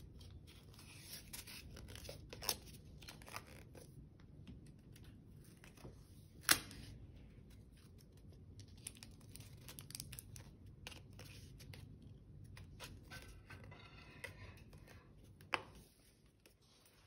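Faint rustling and crinkling of a sheet of paper being rolled tight into a tube and handled, with a few sharp clicks or taps, the loudest about six and a half seconds in.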